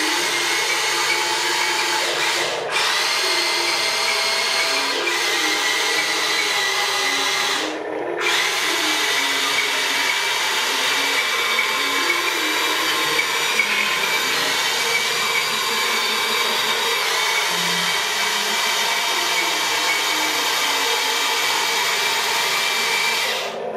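Electric motors and plastic gearboxes of a remote-control toy excavator whirring steadily as it drives on its tracks and works its boom, with brief breaks about three and eight seconds in.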